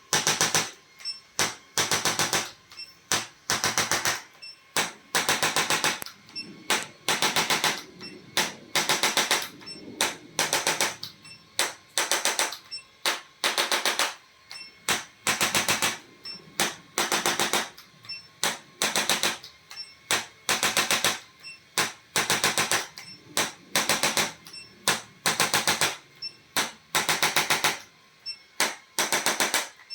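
A handheld electric percussion device firing in short bursts of rapid buzzing taps, about two bursts a second with brief gaps between them.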